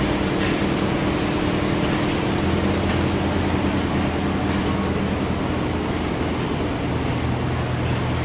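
Stationary engines running steadily in a machinery shed: a continuous mechanical drone. Its low hum shifts lower about two and a half seconds in.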